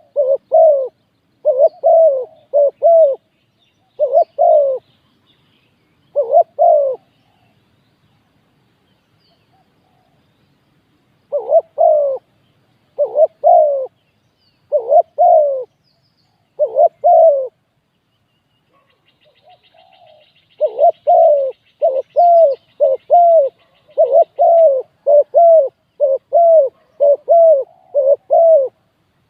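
Spotted dove cooing: short, low coo notes in groups of one to three, broken by pauses of several seconds, then a faster run of coos through the last third.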